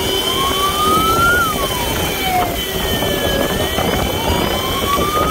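Wailing siren of a motorcycle sidecar ambulance, its pitch rising slowly and dropping back quickly, then rising again near the end, over the steady rumble of motorcycle engines in traffic.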